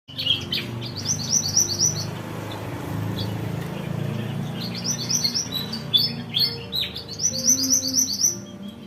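Small songbirds chirping and singing: quick runs of repeated high chirp notes, three runs in all, with other calls scattered between them. A low hum runs underneath for most of it.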